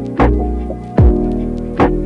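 Lo-fi hip-hop backing music: sustained chords over a deep kick drum hitting about every 0.8 seconds.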